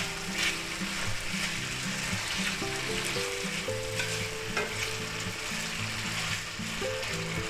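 Marinated chicken pieces sizzling in hot oil in a cast iron skillet at medium heat, while a utensil stirs them with a few short scrapes against the pan.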